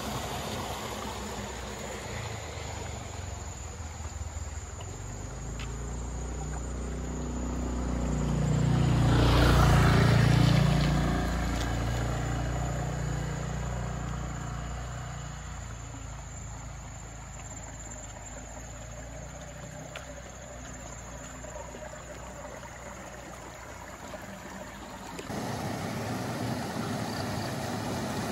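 A motor scooter comes up and passes close by, its small engine loudest about ten seconds in, then fades away ahead. Near the end, water spilling over small irrigation-channel weirs comes in suddenly as a steady rush.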